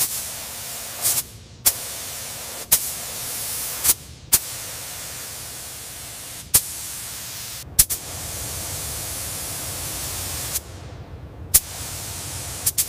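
Spray gun hissing in stretches of a few seconds, each stretch starting or stopping with a sharp click, while primer or paint is sprayed onto the helicopter.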